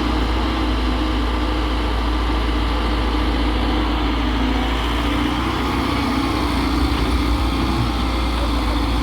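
Heavy diesel machinery running steadily, a constant low engine drone with no change in pitch.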